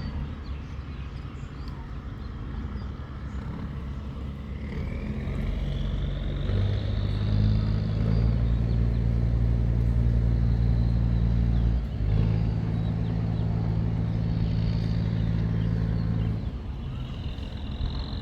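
Wooden tugboat's diesel engine running steadily with a deep, even drone. It grows louder over several seconds, dips for a moment in the middle, then falls back near the end.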